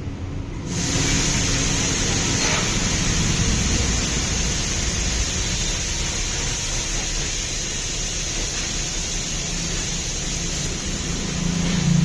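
Compressed air hissing steadily at a tyre changer, starting suddenly about a second in, over a low hum.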